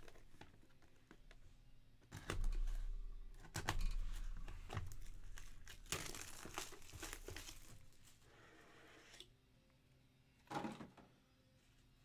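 Plastic packaging crinkling and tearing, with handling clicks: a sealed sports card box being unwrapped and opened, busiest from about two to eight seconds in. A short bump near the end.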